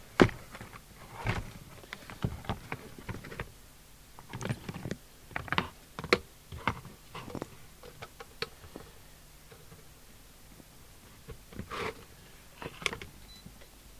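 Scattered clicks and knocks of power leads and connectors being handled and hooked up on a workbench. The loudest knock comes right at the start. They are busiest over the first seven or eight seconds, go quiet for a few seconds, and pick up again briefly near the end.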